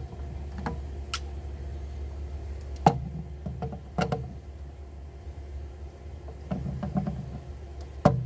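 Channel-lock pliers gripping and turning plastic union nuts on a pool filter tank: several sharp clicks and knocks, the loudest about three seconds in and near the end, over a steady low hum.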